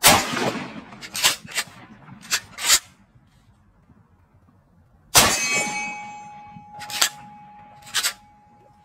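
Two 12-gauge pump-action shotgun shots with 3-inch slugs about five seconds apart, each followed by sharp clacks of the pump being worked to chamber the next shell. A metallic ringing hangs after the second shot.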